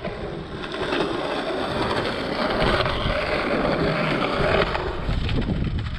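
Skateboard wheels rolling on concrete: a steady rushing roll that builds over the first second, holds, and falls away near the end.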